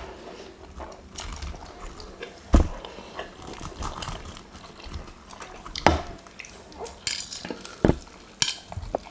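Eating sounds of spicy instant noodles and fried chicken: wet slurping and chewing, with a fork on a bowl and several sharp clicks, the loudest about two and a half seconds in and a few more in the last seconds.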